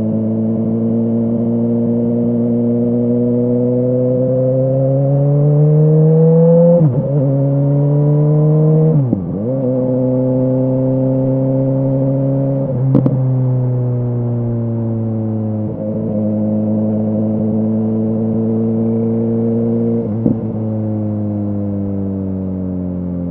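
BMW S1000R's inline-four engine through an Arrow exhaust, pulling and rising in pitch, then dipping sharply several times as gears change with the quick shifter, settling back to a steady cruise between shifts.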